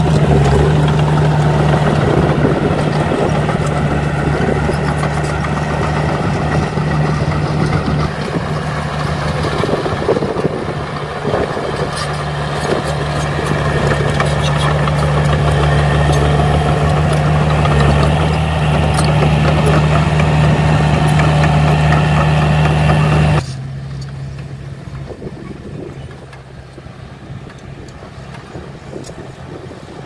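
Crawler bulldozer's diesel engine running steadily under load as it pushes soil, a strong low hum with scattered clanks from the tracks. About three-quarters of the way through the sound cuts off abruptly, leaving quieter engine noise.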